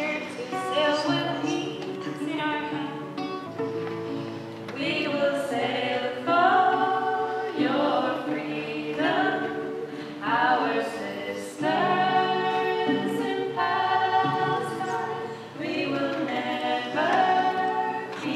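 A small group of women singing a self-composed song together, accompanied by acoustic guitar.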